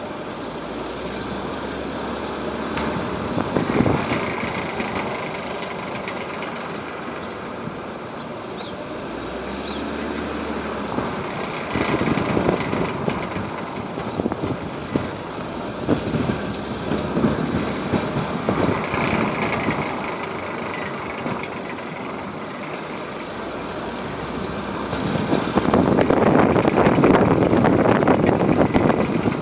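Mercedes-Benz W210 running, with steady road and engine noise and an irregular rattle that comes and goes, loudest near the end.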